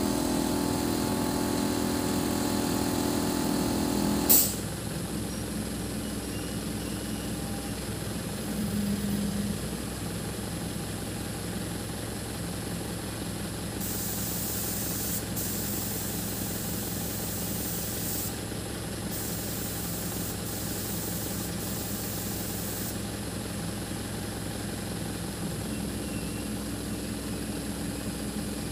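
Truck-mounted boom lift's engine running with a steady pitched drone, which stops with a sharp click about four seconds in. The engine then runs on at a steady idle.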